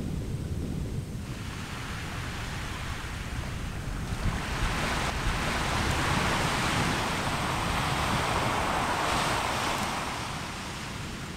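A volcanic eruption of Anak Krakatau heard as a rushing hiss with a low rumble under it. It builds about a second in, swells strongly as the lava fountain and ash burst out, and eases off near the end.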